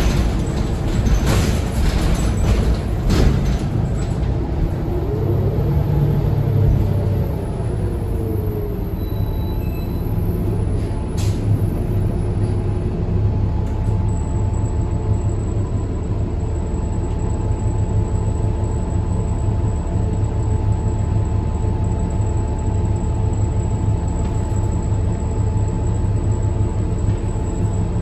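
A 2020 New Flyer XD40 diesel bus heard on board while riding: the engine and drivetrain run with a steady low hum. There are a few knocks or rattles in the first few seconds, and a tone rises and then falls about five to nine seconds in.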